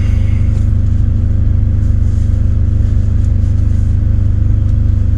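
A diesel engine idling steadily, heard inside a semi-truck cab as a loud, even low drone. A few faint light clicks sit on top of it.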